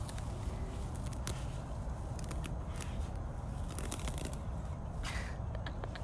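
A black leopard tearing and chewing at long grass: faint scattered crackles and rustles over a steady low rumble.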